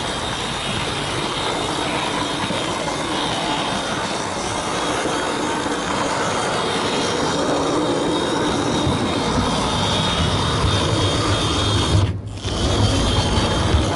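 Märklin model train running on its track, heard from a camera riding on one of its wagons: a steady rolling, rubbing rattle. A deeper rumble joins about nine seconds in, and the sound drops out for a moment about twelve seconds in.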